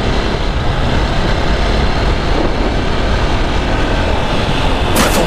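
Wind rushing over the helmet-mounted microphone as a KTM RC single-cylinder sport motorcycle runs at speed on the open road, a steady, dense roar. A hip-hop beat comes in near the end.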